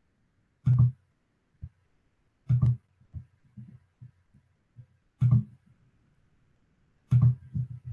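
Handling noise from working a computer: four louder short thumps with clicks, about two seconds apart, with fainter taps between them.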